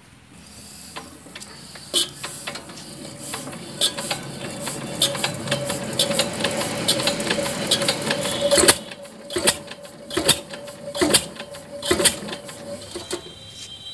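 A 20 hp Field Marshal Lister-type diesel engine with twin flywheels being started by hand. A rapid mechanical clatter builds over the first half, then sharp knocks come about once a second.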